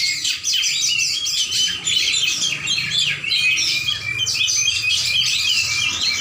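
Oriental magpie-robin (kacer) singing a fast, unbroken run of varied chirps and whistles.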